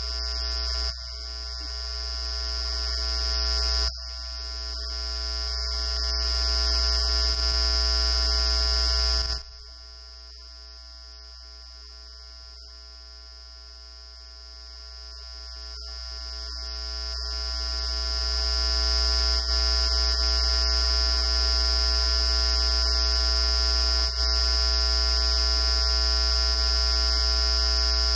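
Loud electrical hum and buzz on the recording: a strong low drone with many steady tones stacked above it, swelling and then dropping off suddenly several times, about 1, 4 and 9 seconds in, before building back up. The speech of the meeting, still going on, is not heard through it, the sign of a fault in the audio feed.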